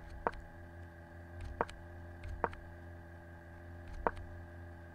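Four sharp, short clicks, unevenly spaced about a second apart, as moves are stepped through on a computer chess board, over a steady low electrical hum.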